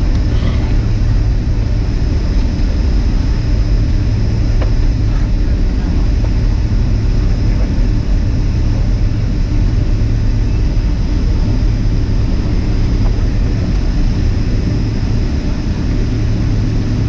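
Steady low drone of a Boeing 767's jet engines and airflow heard from inside the passenger cabin, with no rise or fall in level.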